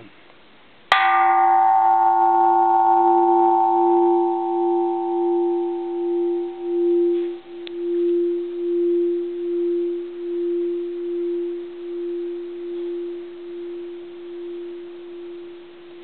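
Bronze Japanese Buddhist temple bell, cast in 1625, struck once about a second in. A long, low hum follows with a slow, even pulse, while the brighter upper tones die away within a few seconds.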